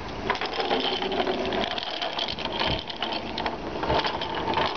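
Green alligator pull toy being dragged on its string across wooden deck boards, its wheels and segments clattering and clicking continuously.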